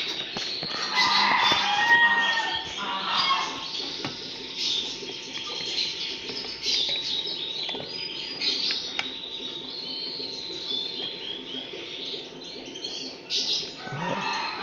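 Small cage birds chirping and twittering throughout, with a louder, lower-pitched stretch from about one to three and a half seconds in.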